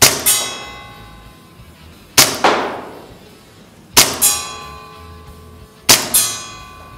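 WE Makarov gas blowback airsoft pistol, fitted with a suppressor and extended inner barrel, fired four times about two seconds apart. Each shot is followed a fraction of a second later by a ringing ping as the BB strikes a metal target.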